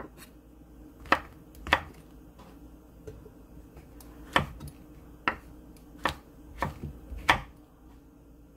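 Chef's knife slicing whole shiitake mushrooms on a thick wooden cutting board: about eight irregular knocks of the blade striking the wood, the last ones the loudest.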